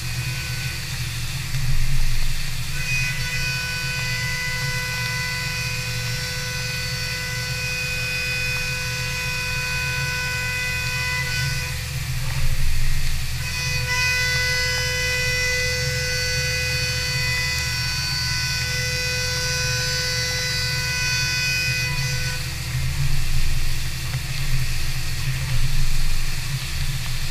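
CNC vertical machining center milling aluminum boxway bars under flood coolant. A steady machine hum runs under a high cutting tone with its overtones: the tone sounds for about nine seconds, breaks off near the middle, then returns for another nine seconds.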